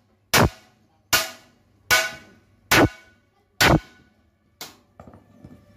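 Evenly spaced hammer blows on metal, about one every 0.8 seconds, each with a short ring; six strong strikes, then two lighter ones near the end.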